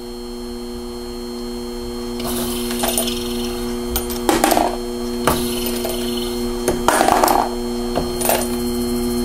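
Henderson Gen 3 powered case trimmer running with a steady motor hum while rifle brass cases are clamped in and trimmed. Short scraping, clicking bursts of the cutter working on the brass and of the cases being handled come every second or two; the loudest is about seven seconds in.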